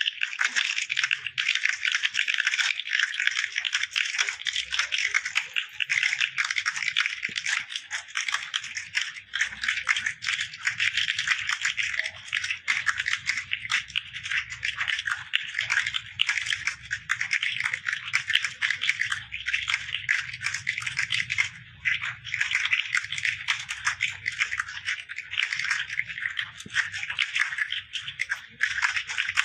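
Many computer keyboards typed on at once: a dense, continuous clatter of overlapping key clicks, the noise of a hall full of candidates sitting a typing test together.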